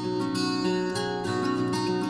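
Background music: a melody of plucked string notes.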